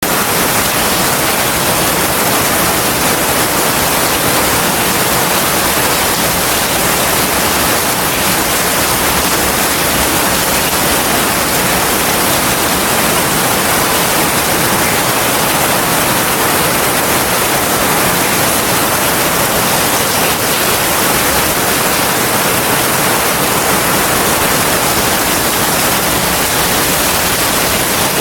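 Heavy rain falling steadily, a dense, even hiss with no thunder in it.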